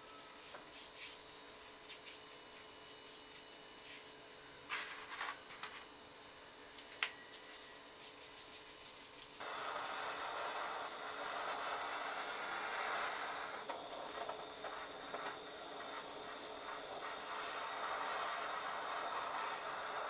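Scattered light clicks and taps, then about nine seconds in a butane canister blowtorch starts with a sudden, steady hiss. The torch keeps hissing as it browns the sugar on top of macaron shells.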